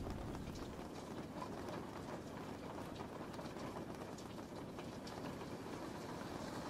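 Steady rain: an even hiss with scattered small drops ticking.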